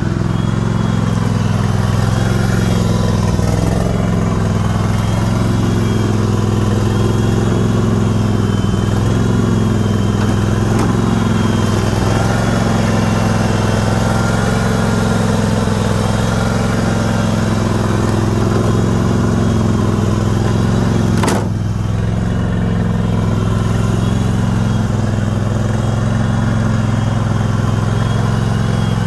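John Deere riding lawn mower's engine running steadily, with one sharp click about 21 seconds in, after which it runs slightly quieter.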